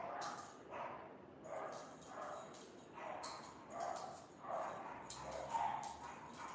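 A dog barking repeatedly in a steady rhythm, about once every two-thirds of a second, each bark much the same pitch; short high scratchy sounds fall between the barks.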